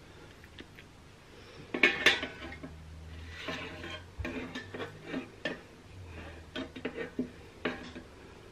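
A spatula and an air fryer basket clattering and knocking together as a stuffed chicken breast is set into the basket, with the loudest clank about two seconds in and lighter knocks after.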